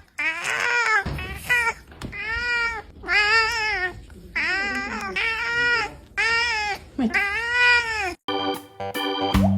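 A cat meowing over and over, about eight drawn-out meows that rise and fall in pitch. Near the end the sound cuts abruptly to electric-piano music.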